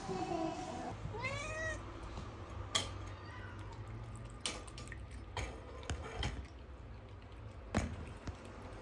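A cat meows once, a single call that rises and falls. It is followed by scattered light clicks and taps as the cat eats dry food from a bowl, over a low steady hum.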